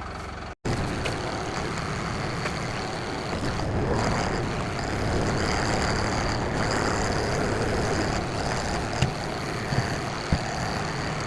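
Engine of a loader machine running steadily, with a few sharp clanks near the end.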